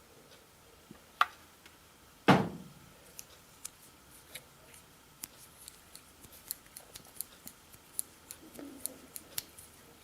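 Metal clicks and snaps of a Victorinox Pioneer Swiss Army knife's stiff tool being worked open and shut, rough in its action. There is one loud knock about two seconds in, followed by a quick run of small sharp clicks.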